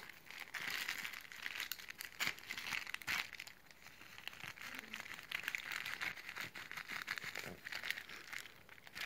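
Scissors cutting open a plastic postal mailer, the plastic bag crinkling and rustling as it is cut and handled, with scattered small clicks.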